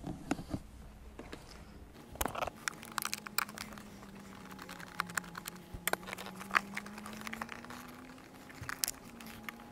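Irregular small clicks, taps and rattles of hands working the screw and the metal mounting bracket of an ATV's starter relay (solenoid) loose.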